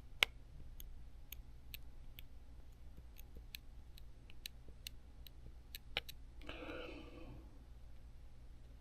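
Faint, regular ticking, about two to three sharp ticks a second, with a brief low murmur of voice about two thirds of the way in.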